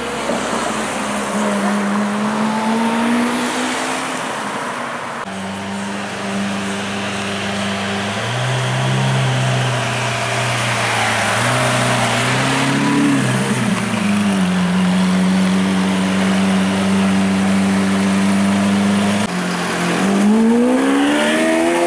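Lamborghini Aventador's naturally aspirated 6.5-litre V12 running at low speed in traffic: a steady low engine note with a short blip of revs partway through. Near the end the pitch climbs quickly as the car accelerates.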